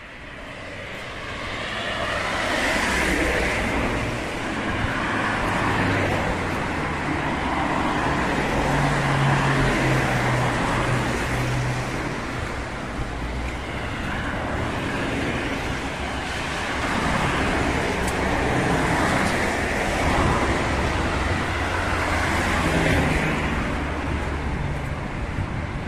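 Road traffic: several cars pass on a wet road, their tyres hissing and engines humming, the sound swelling and fading as each one goes by.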